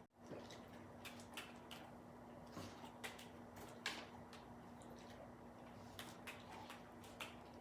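Soft, short hiccups at uneven intervals, eight or so in all, the clearest about four seconds in, over a faint steady hum.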